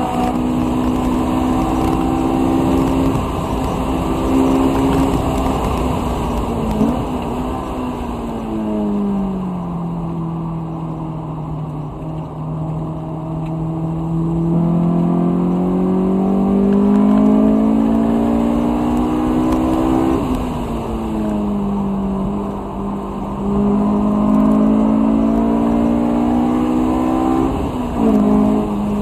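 2006 Honda S2000's F22C1 2.2-litre four-cylinder, with a K&N intake and HKS single-exit exhaust, heard from inside the cabin at full track pace. It holds high revs, then falls in pitch under braking and pulls low and steady through a slow corner. From there it climbs again, with two sudden drops in pitch at the upshifts, about twenty seconds in and near the end.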